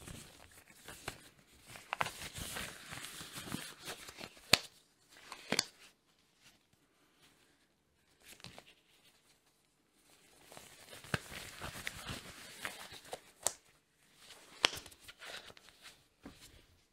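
Green disposable gloves rustling and crinkling as they are pulled onto the hands. There are two spells of rustling, each with a few sharp snaps.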